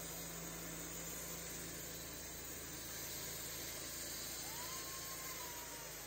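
Steady machine-like noise, even and unchanging. A low hum underneath fades out about a second and a half in, and a faint short whistle-like glide appears near the end.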